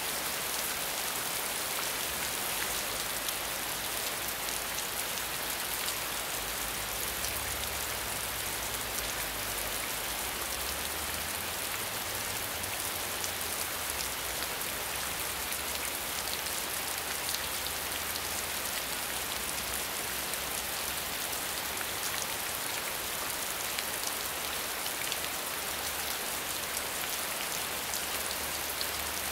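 Steady heavy rain falling on broad leaves: an even hiss with fine ticks of individual drops, unchanging throughout.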